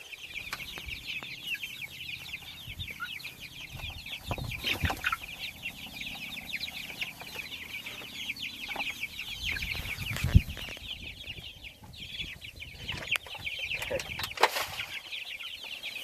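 A flock of young white meat chickens peeping and cheeping continuously, many overlapping short falling calls, while they feed at a trough. A few dull knocks come through, the loudest about ten seconds in.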